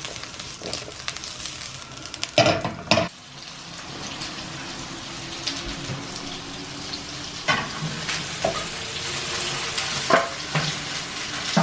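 Chopped vegetables, ginger, garlic and chili stir-frying in a hot pan: a clatter a couple of seconds in, then steady sizzling, with occasional knocks of the utensil against the pan.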